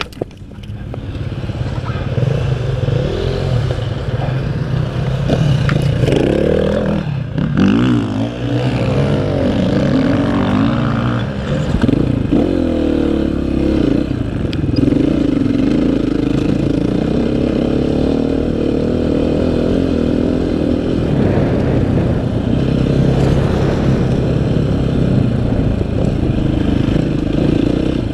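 Dirt bike engine revving up and down as it is ridden over a sandy track. It is quieter for the first second or so, then runs hard.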